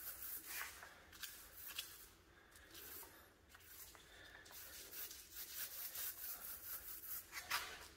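Small paint roller rolled back and forth over a painted window reveal: faint repeated rubbing strokes as the second coat of paint goes on, quicker in the second half.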